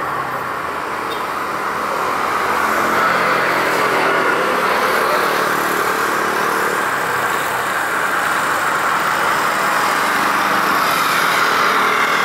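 Jet airliner engines running, a steady jet noise that grows a little louder over the first couple of seconds and then holds.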